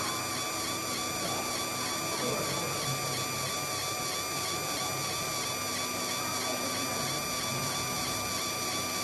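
Fiber laser marking machine running as it marks a picture onto a coated lock: a steady whine of several high tones over a low hum.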